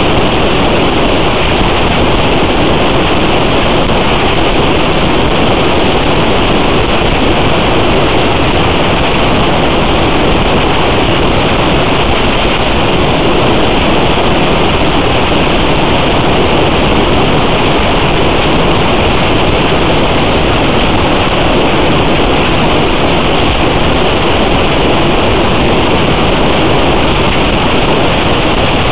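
Steady, loud static hiss, even and unbroken, with no motor pitch or rhythm in it: the sound track of an analog FPV video receiver's recording.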